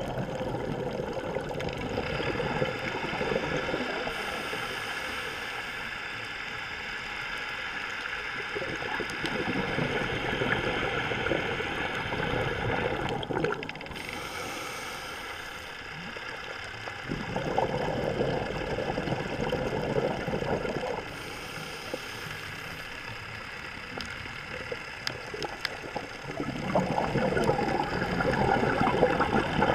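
Scuba diver breathing through a regulator underwater: bursts of exhaled bubbles gurgling about every nine seconds, with short hissing inhalations between them.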